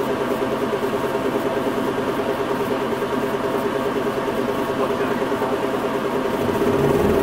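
Hino Rainbow non-step bus's diesel engine heard from inside the passenger cabin, running steadily at idle with a pulsing hum. Near the end the engine note deepens and grows louder.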